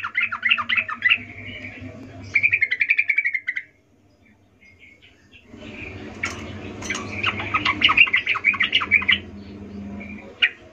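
Yellow-vented bulbul (trucukan) singing: bursts of rapid, bubbling chattering notes, a pause of about two seconds in the middle, then a longer burst and one short call near the end. A faint low hum runs underneath.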